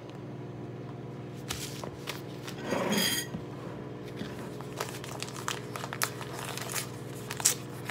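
Paper instant-oatmeal packet being handled, torn open and crinkled: a run of short rustles and small tears, loudest about three seconds in, over a steady appliance hum.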